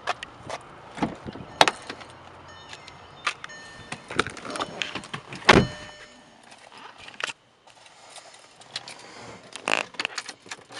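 A Volkswagen Jetta's driver door being opened and someone climbing into the seat: a run of clicks, knocks and handling thumps, the loudest about five and a half seconds in, with a few short beeping tones around three seconds in. Keys rattle at the ignition near the end.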